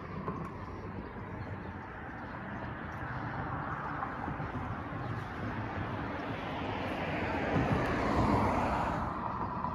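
Yamaha Banshee's twin-cylinder two-stroke engine running steadily, swelling a little about seven to eight seconds in, then settling back.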